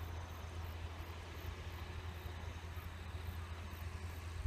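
Outdoor ambience: a steady low rumble, with a faint very high-pitched pulse repeating about twice a second.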